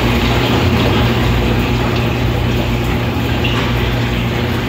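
Steady hum of an aquarium water pump with water running, an even low drone under a constant rush of water that does not change.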